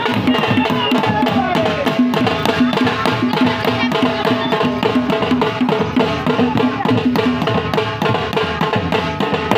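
Drums beating in a fast, dense rhythm, with a steady held tone under them and faint voices.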